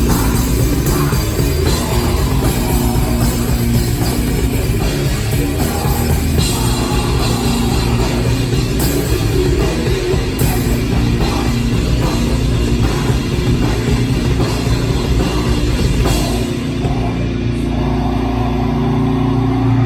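Rock band playing live with drums and guitars. About three-quarters of the way through, the drumming stops and a held chord rings on, the close of the song.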